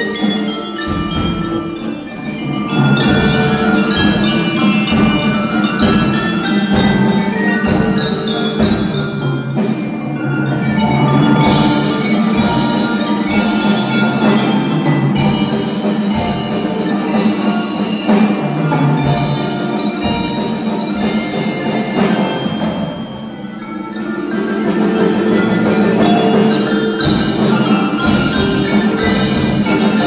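Percussion ensemble playing: marimbas and a xylophone carry a fast melody over regular low drum strokes. The music thins briefly a little over twenty seconds in, then builds back up.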